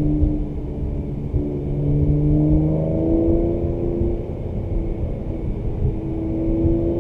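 2017 Mercedes-AMG C43's twin-turbo V6 with performance exhaust, heard from inside the cabin, pulling in gear with its note slowly rising. It eases off about four seconds in and picks up again near the end, over steady road rumble.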